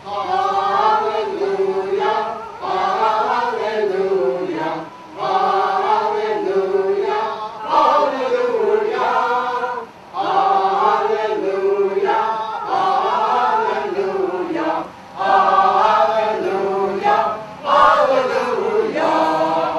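A small mixed choir of men and women singing together, phrase after phrase with short breaths between.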